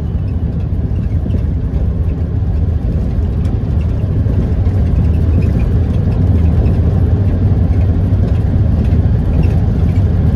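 Road and engine noise inside a moving vehicle's cabin while driving along a highway: a steady low rumble that grows slightly louder about halfway through.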